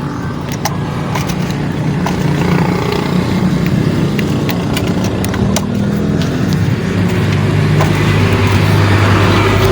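A motor vehicle engine running steadily, its hum growing louder in the second half, with scattered light metallic clicks and taps of parts being handled.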